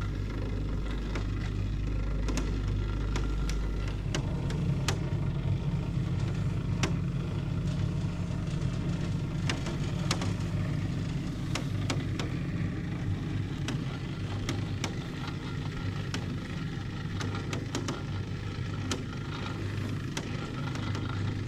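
Steady mechanical hum of an open cable lift descending into a volcano crater, its low drone shifting pitch about four seconds in, with scattered clicks and creaks.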